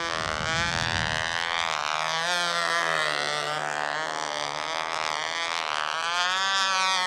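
Small engine of a Nobler control-line model airplane running flat out as the plane flies laps. Its high steady note slides up and down every couple of seconds as the plane comes round toward and away from the listener.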